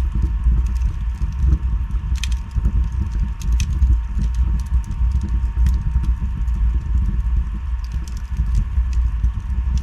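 Wood fire burning in a fireplace: a steady low rumble of flame with scattered sharp crackles and pops, the loudest about two seconds in. A faint steady high hum runs underneath.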